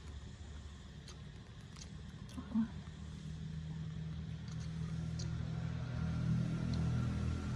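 A low, steady motor hum that grows louder after about three seconds, with a few faint ticks and one brief louder sound about two and a half seconds in.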